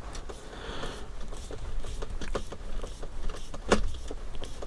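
Small clicks and taps of plastic parts being handled as a front shock is fitted to an RC car chassis, with one sharper knock near the end.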